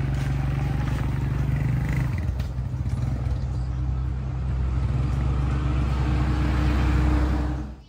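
An engine running steadily, its pitch stepping down a little about two seconds in, then cutting off suddenly near the end.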